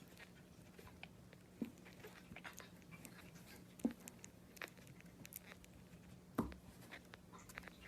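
A dog making quiet small sounds in a small room: scattered faint clicks, with two short louder sounds about four and six and a half seconds in.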